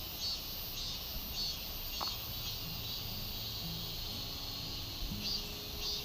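Insects chirping outdoors in short, evenly spaced high pulses, a little under two a second. Quiet background music with held low notes fades in about two seconds in.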